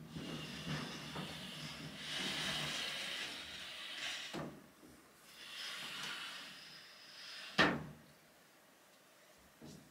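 Wooden shoji sliding doors being slid open along their track in two pushes, a rolling, scraping rumble each time. A short knock comes between the pushes, and a sharp knock about seven and a half seconds in as a door hits the frame.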